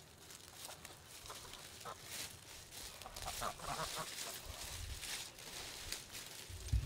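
Sebastopol geese honking: a scattered run of short calls, busiest in the middle. A low thump near the end.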